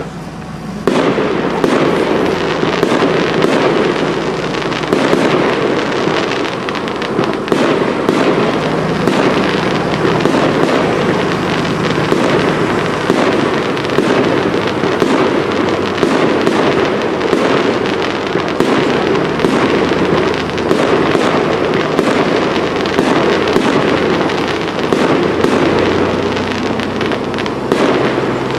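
Aerial fireworks display: a dense, continuous run of shell bursts and crackle, many sharp pops one on top of the other, starting abruptly about a second in.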